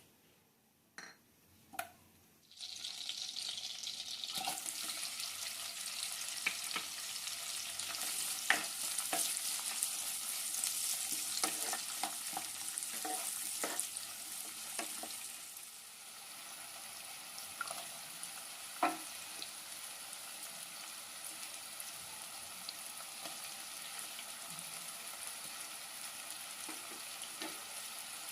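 Food hitting a hot oiled pan and sizzling, starting suddenly after two light knocks, while a spoon or spatula stirs it with scattered knocks and scrapes against the pan. The sizzle settles to a steadier, quieter hiss past the middle.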